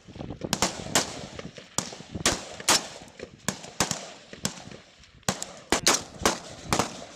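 Gunfire: rifle shots fired in quick, irregular succession, singly and in close pairs, each followed by a short echo.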